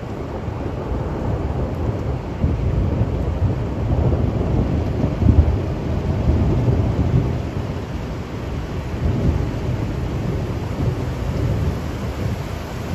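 Steady rain with a deep rolling rumble under it. The rumble builds over the first couple of seconds, is loudest about five seconds in, then eases off.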